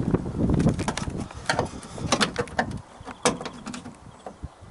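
Plastic door vapour barrier and duct tape being pulled back from a car door's inner panel: crackling and rustling handling noise with several sharp clicks and snaps.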